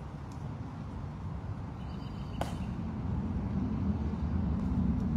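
Steady low outdoor rumble, growing louder toward the end, with one sharp click about two and a half seconds in: a ceremonial guard's heel click during a drill movement. A few fainter ticks come before and after it.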